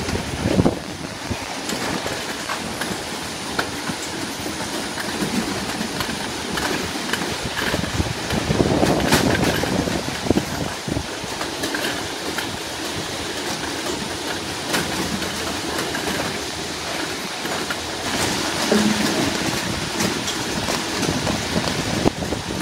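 Avocado packing line running: conveyor rollers and belts make a steady mechanical clatter, with many small knocks of fruit rolling along. It grows louder for a couple of seconds about a third of the way in.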